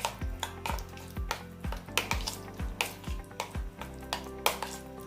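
A spoon stirring chopped mango and yogurt in a bowl, with clinks against the bowl a few times a second, over background music with a steady beat.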